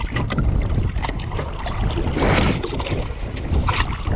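Water splashing and rushing against a small sailboat's hull under sail, with wind buffeting the microphone held at the waterline; a louder wash of water comes about two seconds in.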